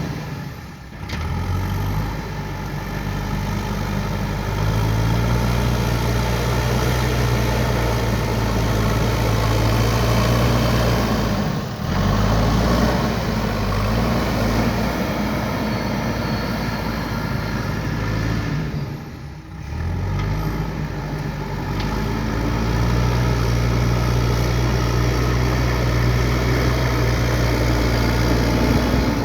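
JCB 3DX backhoe loader's diesel engine running under working load, its pitch rising and falling several times as the operator revs it. The sound dips briefly near the start, about twelve seconds in and about twenty seconds in.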